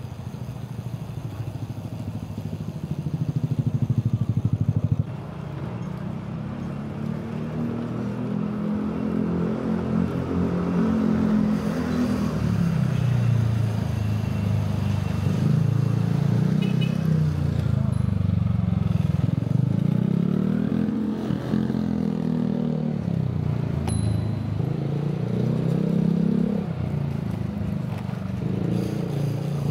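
City road traffic heard from a bicycle: the engines of nearby vehicles rise and fall in pitch again and again as they speed up and slow down, over a steady road noise.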